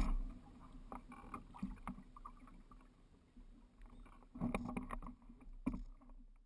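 Water rushing and slapping along the hull of a Dart 18 sailing catamaran under way, over a steady low wind rumble on the microphone. It swells into louder splashes about four and a half seconds in and again near six seconds, then cuts off suddenly.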